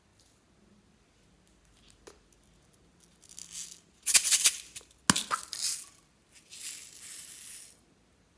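Slime with floam beads being squeezed and worked by hand, giving four bursts of crackling, with a sharp snap a little past halfway.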